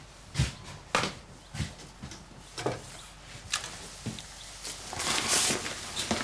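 A series of separate knocks and bumps from things being handled in a cupboard, then, near the end, the crinkling of a crumpled sheet of paper being unfolded.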